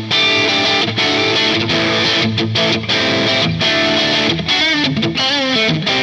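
Soloking MT-1 Custom 22 electric guitar played through an overdriven (drive) tone: chugging riffs and chords, with a short phrase of single notes shaken with vibrato about four to five seconds in.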